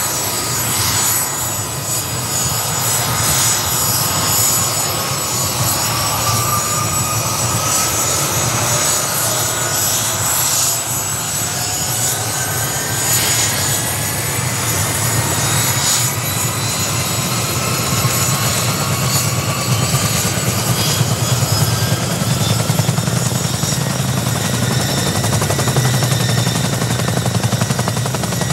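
CH-47 Chinook helicopter's twin turboshaft engines running during startup with both rotors turning: a whine that rises slowly in pitch as the engines spool up, over a low rhythmic rotor beat that grows stronger in the second half.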